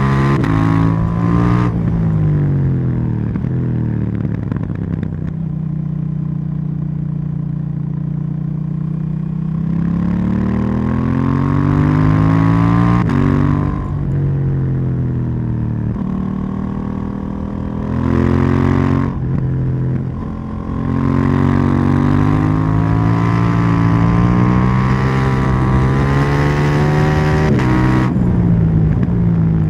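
KTM 790 Duke's parallel-twin engine being ridden: revs climb in each gear and drop sharply at the gear changes several times, with stretches of steady cruising between the pulls.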